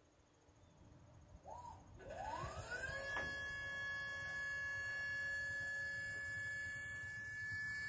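Haulotte 3522A man lift's hydraulic pump starting up about two seconds in: its whine rises in pitch over about a second, then holds steady and high while the boom moves.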